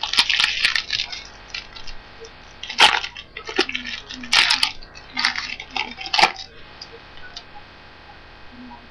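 Wrapper of a trading-card pack crinkling and tearing as it is opened by hand, in irregular sharp rustles that die away about two thirds of the way through.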